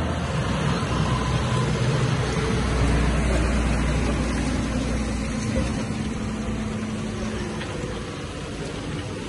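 Diesel engine of a John Deere tractor running while it tows a loaded feeder wagon, a steady low hum that grows quieter in the second half as the tractor moves away.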